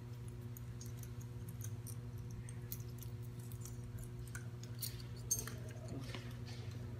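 Light metallic clicks and clinks of small sauna door-handle parts and screws being worked loose by hand, scattered irregularly, over a steady low electrical hum.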